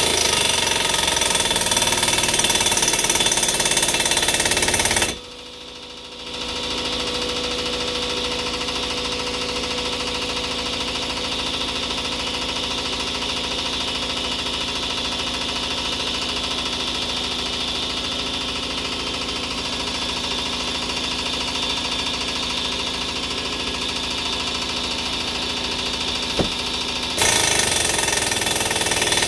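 A pneumatic impact wrench hammers for about five seconds, driving the exhaust pipe expander's dies open inside a steel exhaust pipe, then stops. An air compressor then starts up and runs steadily. Near the end the impact wrench starts hammering again.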